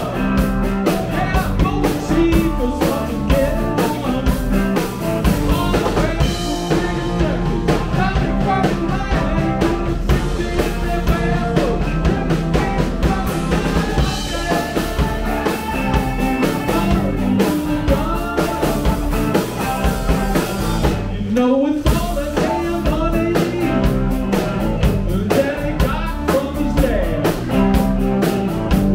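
Live rock band playing: two electric guitars, electric bass and drum kit driving a steady beat, with a woman singing lead. About two-thirds of the way through the band briefly drops out under a rising slide, then comes back in.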